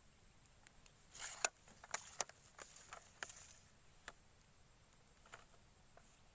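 A few faint rustles and sharp clicks from movement close by, most of them bunched together in the middle, over a faint steady high-pitched tone.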